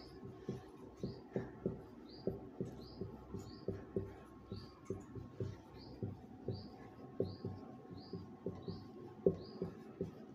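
Marker writing on a whiteboard: quick knocks and scrapes of the pen strokes, with a short, high, rising squeak about twice a second.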